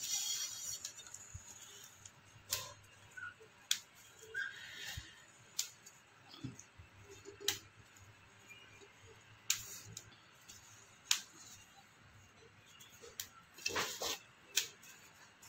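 Handling noise: about eight scattered light clicks and knocks, the strongest near the end, as cookware is handled.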